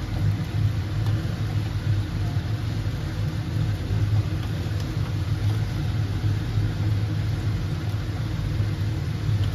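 A steady low hum of a running motor, even in level throughout.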